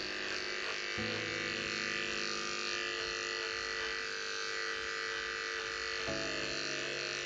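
Corded electric pet clipper buzzing steadily as it shaves matted, felted fur off a cat's belly. Its hum changes slightly about a second in and again about six seconds in.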